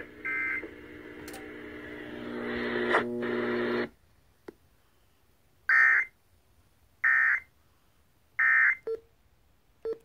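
Three short Emergency Alert System end-of-message data bursts, about 1.4 s apart, from a RadioShack weather-alert radio tuned to FM 98.7, signalling the end of the Required Monthly Test. Before them, steady tones and hiss from an FM receiver cut off about four seconds in, and a click comes near the end.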